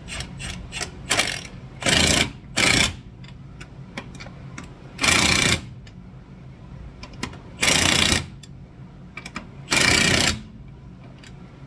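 Impact wrench hammering on lug nuts in five short bursts of about half a second each, with small clicks of tools and parts between them.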